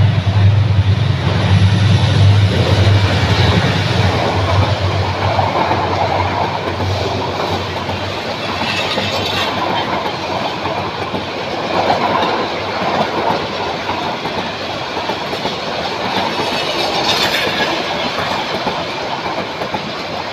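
A diesel locomotive passing close by with a strong low engine drone for the first several seconds, followed by its passenger coaches rolling past with a steady rumble and clatter of wheels over the rail joints.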